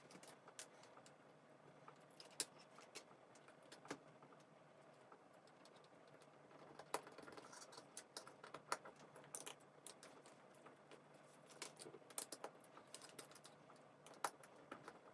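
Faint, scattered clicks and taps of hand work as wires are connected into the terminals of a wall push button, a few at first and more often in the second half.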